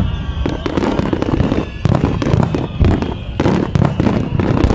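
A dense barrage of aerial firework shells bursting: rapid, overlapping bangs over a continuous low rumble.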